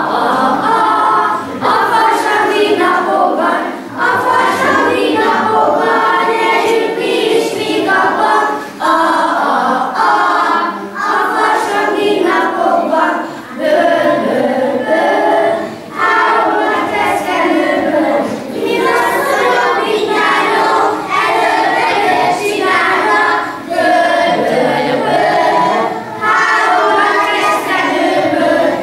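A group of young children singing a song together without instruments, in short phrases with brief breaks between them.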